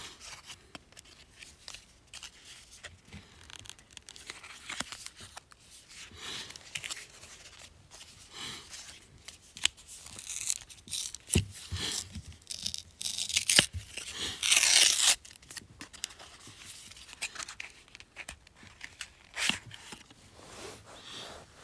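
A small cardboard trading-card box being torn open by hand: rustling and scraping of paperboard with a few sharp clicks, and one longer, louder rip about two-thirds of the way through.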